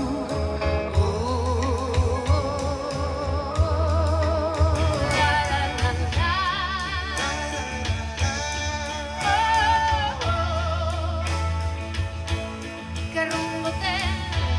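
Live band playing a song: a singer with a strong vibrato over guitar, a steady bass line and drums.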